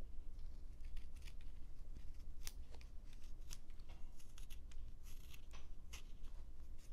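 Sharp detail carving knife slicing into a wood block in an irregular series of short cuts, a few a second, each a brief snick.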